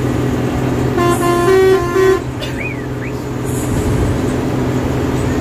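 A bus's multi-tone horn plays a short run of stepped notes for about a second, over the steady hum of the bus's diesel engine running.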